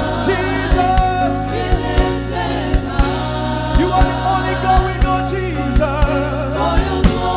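Live gospel worship music: a choir and congregation singing over a band with sustained bass notes and a steady drum beat.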